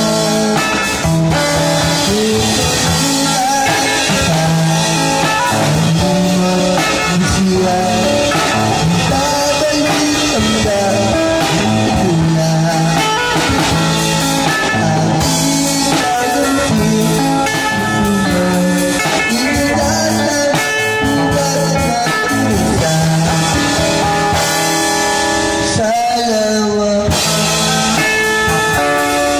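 A guitar-led rock song with vocals, played loud through a portable PA speaker, with a child drummer playing along live on an acoustic drum kit.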